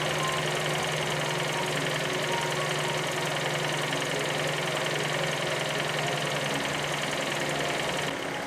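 Fiat 500's 0.9 TwinAir turbo petrol engine idling steadily.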